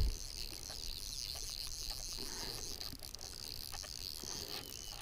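Steady high-pitched insect chirping, cricket-like, with a few faint ticks of fly line being handled.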